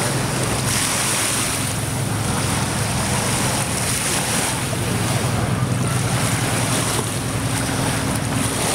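Wind buffeting the microphone over small lake waves lapping in the shallows, with a steady low hum of motorboats out on the lake.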